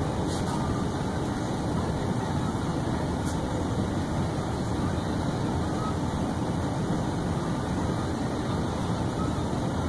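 Steady, even background noise, strongest in the low range, holding at one level with no distinct events.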